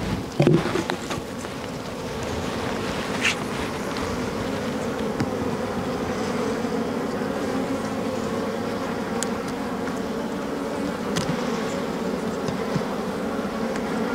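A colony of wild bees buzzing steadily around their opened nest as the comb is cut out. There is a bump about half a second in and a few faint clicks later.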